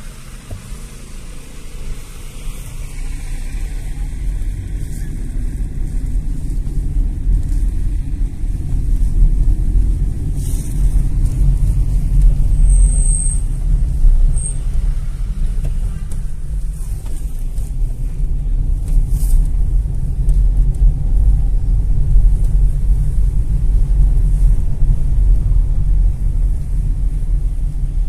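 Low rumble of a car's engine and tyres heard inside the cabin while driving, building over the first several seconds and then holding steady. Two short high beeps come about halfway through.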